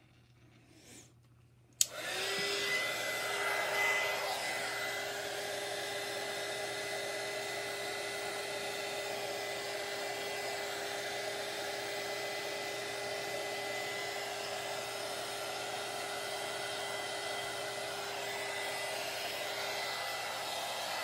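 Handheld heat gun switched on with a click about two seconds in, then running steadily with a fan-motor whine, blowing over fresh epoxy on tumblers to pop bubbles.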